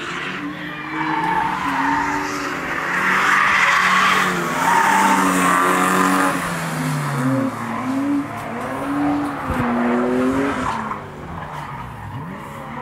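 BMW 328i being driven hard on a circuit: the engine revs rise and fall, and the tyres squeal and skid, loudest about a third of the way in.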